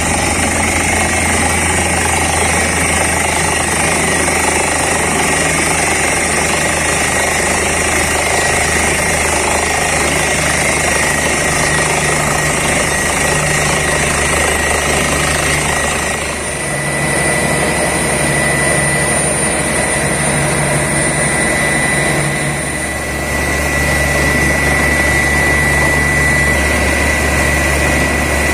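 Borewell drilling rig running with its air compressor: a loud, steady engine drone with a pulsing beat and a high whistle over it. The sound eases briefly twice, about halfway through and again a few seconds later.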